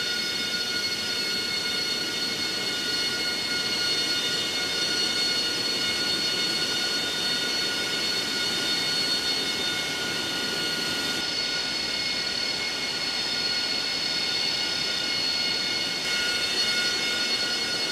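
AV-8B Harrier II's Pegasus turbofan idling on the ground: a steady high-pitched whine made of several held tones over a constant rushing hiss.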